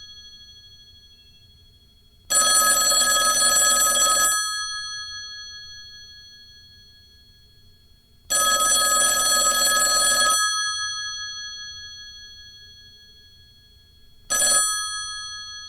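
Old landline telephone's bell ringer ringing: two rings of about two seconds each, six seconds apart, then a brief third ring near the end, the bells ringing out slowly after each.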